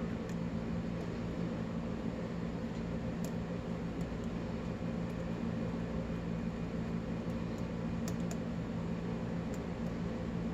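Faint, scattered metallic clicks of a lock pick working the pin stack inside a 5-pin Abus-made padlock held under tension, while a false set is being worked deeper. A steady low hum runs underneath.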